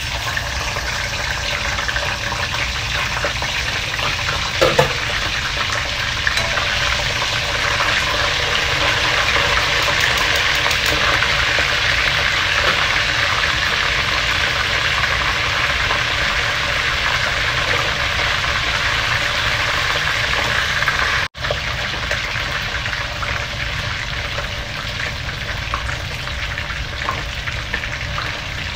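Whole fish deep-frying in hot oil in a wok: a steady, loud sizzle that swells after the fish goes in. There is a brief knock about five seconds in.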